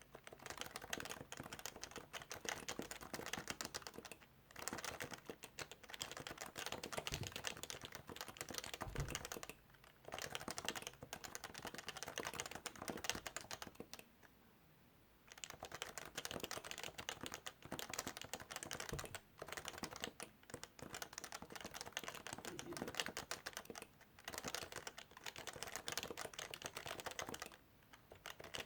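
Rapid, continuous typing on a Topre Realforce keyboard with electrostatic capacitive switches. It breaks off a few times for short pauses, the longest about a second and a half around the middle.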